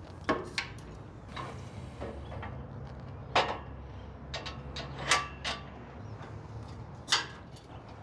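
Irregular metal knocks and clicks as a metal safety gate is handled and fitted onto the elevator platform's frame, the loudest knocks about three and a half and seven seconds in.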